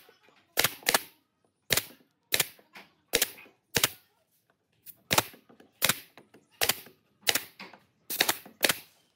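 A nail gun firing nails through pine pallet boards into a wooden frame. About a dozen sharp cracks come roughly every two-thirds of a second, with short gaps between them.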